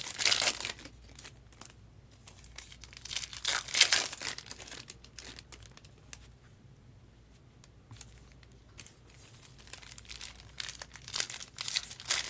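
Trading card pack wrappers crinkling and tearing as packs are opened, in bursts near the start, around three to four seconds in and near the end, with quieter rustling between.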